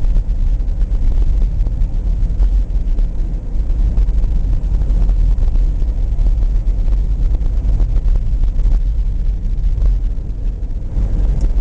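Steady low rumble of a vehicle driving on a snow-covered highway, heard from inside the cabin.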